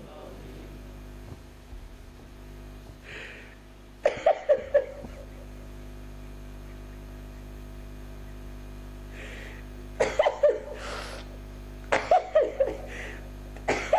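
A man sobbing into a microphone: short choked cries and sniffs in bursts about four seconds in, and again around ten and twelve seconds, over a steady hum.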